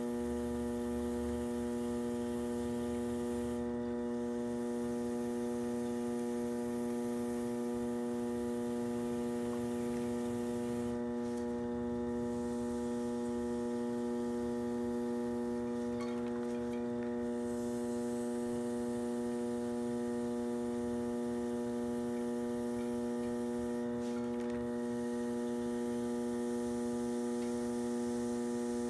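Electric potter's wheel running at steady speed, a constant electrical hum made of several steady tones, with a faint scraping hiss of a metal trimming tool cutting leather-hard clay that stops briefly a few times as the tool is lifted.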